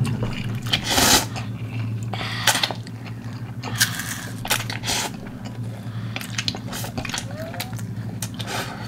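Close-miked eating: instant ramen noodles slurped from a cup with chopsticks, in a series of short slurps and chewing noises, over a steady low hum.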